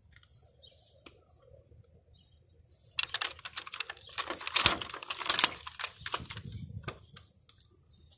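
Metal gate latch rattling and clanking as a ring-handle latch is turned and a garden gate is opened: a dense run of clicks and clatter starting about three seconds in and lasting about four seconds.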